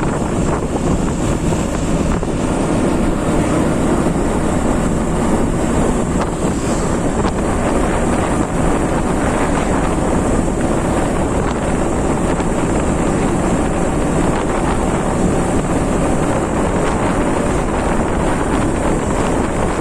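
Steady wind rush on the microphone over a motorcycle running at road speed.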